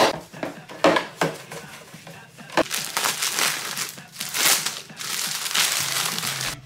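A few sharp knocks as a clear plastic case is handled on the sink counter. Then, from about two and a half seconds in, the plastic wrapping of a pack of paper hand towels crinkles as it is handled and opened.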